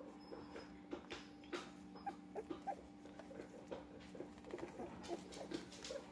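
Two-week-old puppy making many faint, short squeaks as it crawls over foam, with soft scuffing of its paws; the puppy is hungry and looking to nurse.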